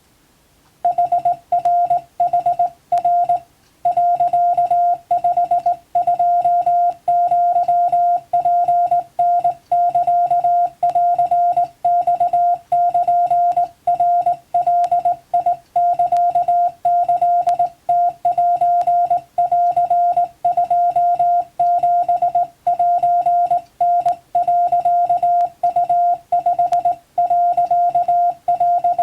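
Morse code (CW) practice tone: a single mid-pitched beep keyed rapidly on and off in dots and dashes, starting about a second in and running on as continuous code with a brief pause early on.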